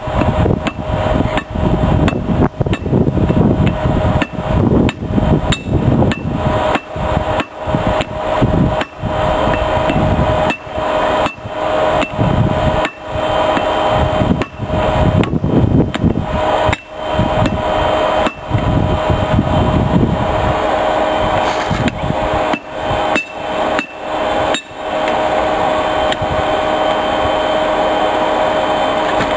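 Hand hammer blows on hot metal on an anvil, irregular, about one to two strikes a second, as a spike is forged. They stop a few seconds before the end. Beneath runs the steady hum of the forge's air blower.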